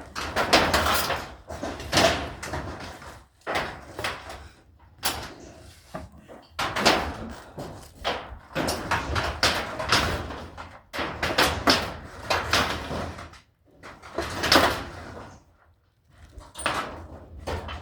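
Repeated irregular bangs and knocks of barn boards being pried and hammered loose during hand demolition, with a few brief pauses between bursts of impacts.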